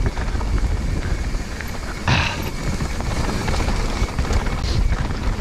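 Mountain bike riding fast down a dirt trail, heard from a camera on the bike: wind rushing over the microphone, tyres on dirt and the bike rattling over bumps, with a brief louder scrape or knock about two seconds in.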